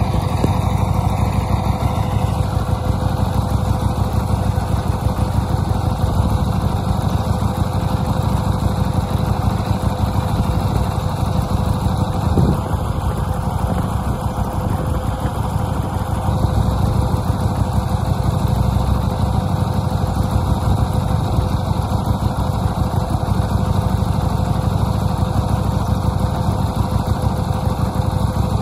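Buell 1125R's Rotax V-twin idling steadily on its stock exhaust, the engine's mechanical clatter heard over the exhaust. One short knock about twelve seconds in.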